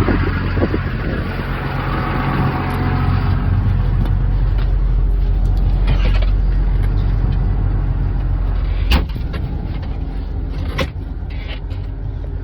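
Diesel engine of heavy farm equipment running steadily under load, with a rushing noise over it for the first few seconds and two sharp knocks, one about nine seconds in and one about eleven.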